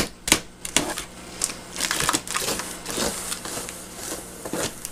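Steak knife cutting into a cardboard shipping box and its packing tape: a few sharp clicks and taps in the first second, then scratchy slicing and rasping through the cardboard.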